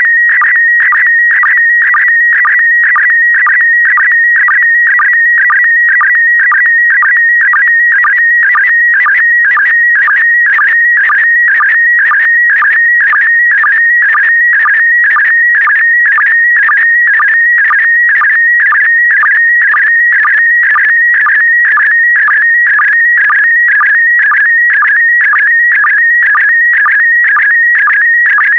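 PD120 slow-scan television (SSTV) image signal: a loud, continuous warbling tone around 2 kHz, pulsing evenly about twice a second as each pair of picture lines is sent.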